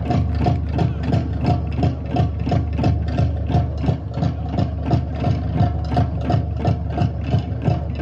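Fast, steady Polynesian drumming, a driving beat of about four strokes a second that accompanies the fire dance.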